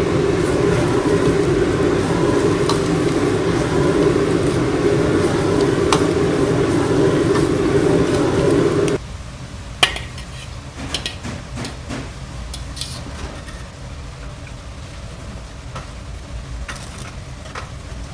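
A loud, steady rumbling noise that cuts off suddenly about nine seconds in, followed by quieter scattered clinks and taps of dishes and utensils.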